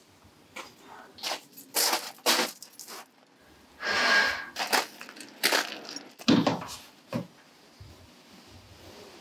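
A run of short crunching and clicking noises: footsteps on a gravel drive, then keys rattling and a front door being unlocked and opened.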